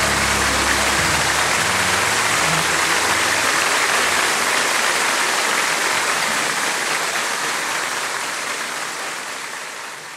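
Audience applauding at the end of a live song, the last low notes of the band dying away in the first couple of seconds. The applause fades out near the end.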